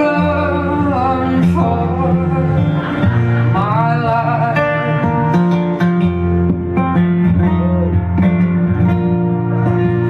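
Live band with guitars: a man and a woman singing together, giving way about halfway through to a guitar-led instrumental passage.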